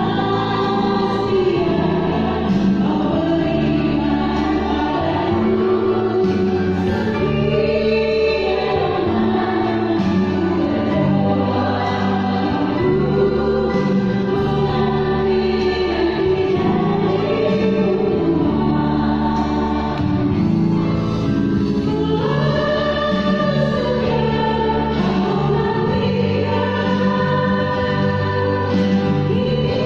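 A virtual choir singing in several voice parts, continuous throughout.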